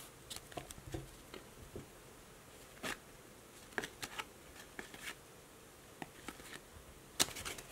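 Upper Deck hockey trading cards being flipped through by hand, each card slid off the stack in turn: soft, irregular flicks and taps of card stock, a few louder ones among them.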